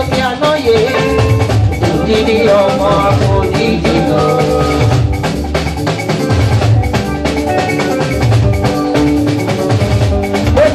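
Dance band music with drums, hand percussion and bass keeping a steady, even beat, with sustained instrument notes over it.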